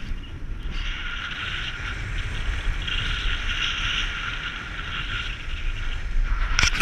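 Wind buffeting the microphone with a steady hiss of skis or a board sliding over packed snow while moving downhill. Near the end a rapid, rattling scrape starts and grows louder as the edges chatter on harder snow.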